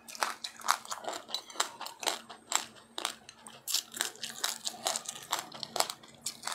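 Close-miked chewing of a crunchy food: a rapid, irregular run of sharp crunches, about four a second.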